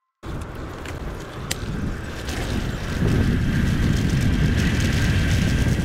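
Wind buffeting the microphone of a camera riding on a moving bicycle, a dense low rumble. It starts abruptly just after the start and grows louder about three seconds in.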